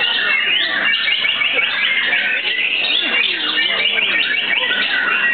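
Many caged white-rumped shamas singing at once in competition: a dense, unbroken tangle of loud whistles, trills and chattering phrases.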